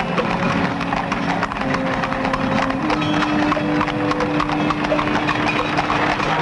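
Horses' hooves clip-clopping and a horse-drawn carriage clattering along a road, a dense, continuous run of knocks, over long held notes of background music.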